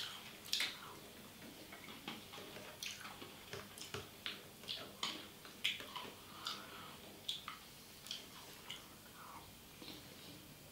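Eating a creamy dessert with a metal spoon from a plastic cup: spoon scraping and clicking against the cup, with wet mouth and lip-smacking sounds, as a string of short, irregular clicks about once or twice a second.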